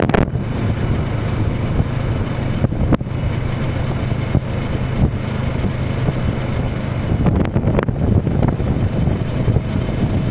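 Kawasaki Versys 650 motorcycle's parallel-twin engine running steadily under way, with wind rushing over the microphone. A few brief knocks cut through.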